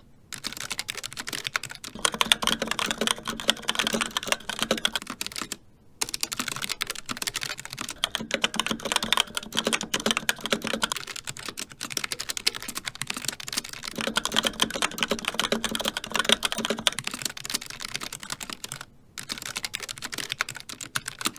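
Continuous fast typing on a mechanical keyboard: a dense run of keystroke clicks, with short breaks about six seconds in and again near the end.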